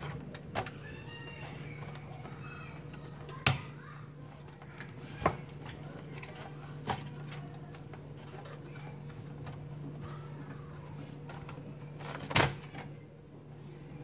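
Sharp metal clicks and knocks, five in all with the loudest about three and a half seconds and twelve seconds in, as a PCI network card's metal bracket is seated and fastened in a desktop computer case's expansion slot. A steady low hum runs under them.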